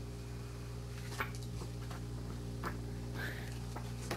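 Steady low electrical hum with faint even overtones, with a few faint clicks.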